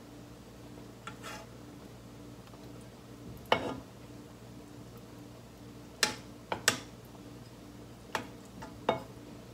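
Long cooking chopsticks knocking against the rim of an aluminium pan and a plate as stuffed fried tofu pouches are lifted out and served: about six separate sharp clicks, the loudest about three and a half seconds in, over a low steady hum.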